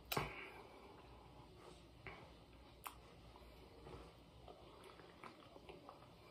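Near silence: quiet room tone with a sharp click just after the start, another near the middle, and a few fainter clicks.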